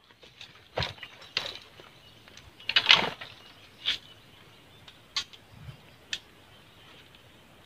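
Scattered clicks and knocks of hunting gear being handled and packed, about six in all, the loudest about three seconds in.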